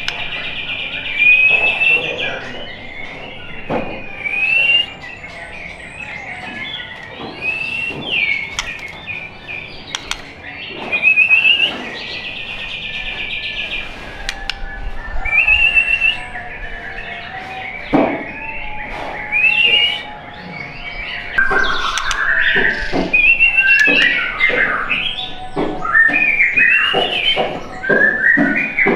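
White-rumped shama (murai batu) singing: loud whistled phrases with rising glides, and bursts of rapidly repeated notes (the 'trotol' chatter) at the start and again about twelve seconds in, with sharp clicks scattered through.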